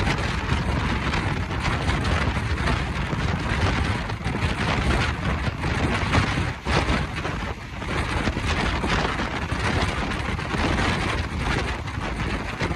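Wind buffeting the microphone of a phone held out of a moving passenger train's window, over the steady running rumble of the train.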